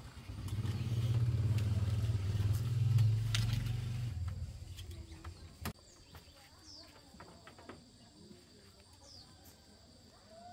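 A motor vehicle's engine passes by, growing louder for about three seconds and then fading away. A single sharp knock follows, and a few short, high chirps falling in pitch sound near the end.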